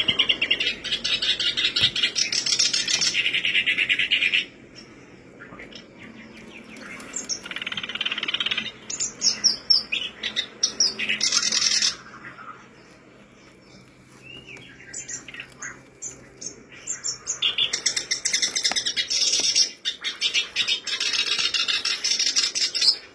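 Black-browed reed warbler singing: several phrases of rapid chattering notes, each one to four seconds long, with single short chirps in the pauses between them.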